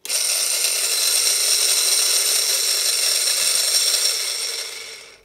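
Small can-type DC motor from a bait boat running free. It gives a loud, steady whine with a rough hiss through it, starts abruptly and dies away over the last second. The sound comes from badly worn bearings in this motor, which has not yet been repaired.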